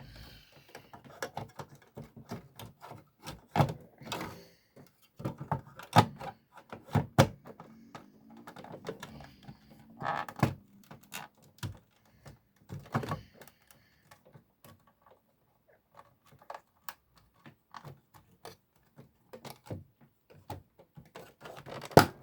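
Irregular clicks and knocks of an original Xbox's plastic and metal parts being handled while the hard drive is fitted back into place, with a quieter lull after the middle and a louder knock near the end.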